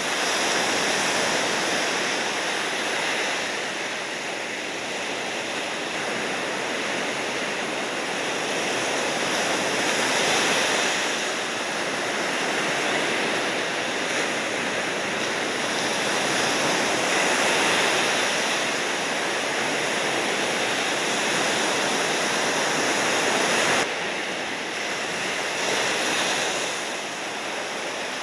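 Steady rush of ocean surf and moving water, with a sudden drop in level about 24 seconds in.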